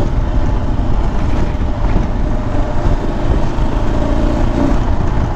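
Motorcycle engine running steadily at a cruising speed of about 40 mph, with heavy wind noise on the microphone and tyres on gravel.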